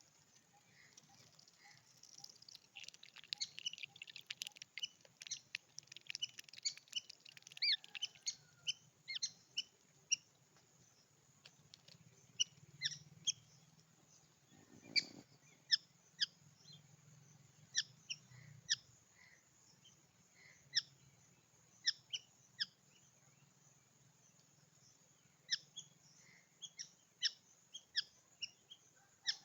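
Small birds chirping: many short, sharp, high chirps at irregular intervals, a dense flurry about three seconds in, then scattered calls.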